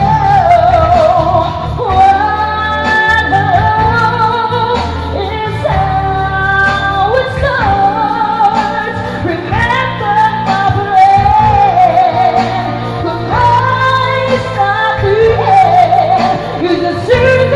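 A woman singing a pop song into a microphone, holding long notes with vibrato, accompanied by a steady bass line and drums.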